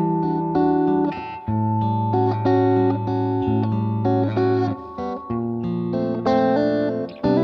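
Background music played on guitar, a run of sustained notes and chords.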